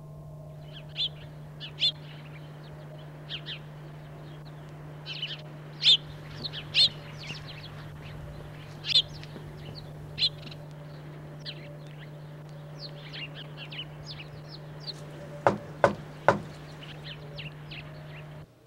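Small birds chirping on and off over a steady low hum, with three quick knocks on a door about fifteen and a half seconds in.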